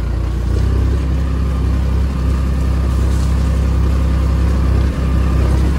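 Compact tractor's engine running steadily as it drives along, a deep, even drone.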